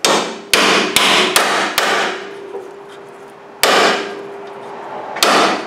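Hammer blows on a socket held over the end of a seized bolt, with the nut screwed back on to protect the threads: this is knocking the frozen bolt loose in its bore. About seven sharp metal strikes, five in quick succession, then two more spaced out, with a faint ringing tone between the early blows.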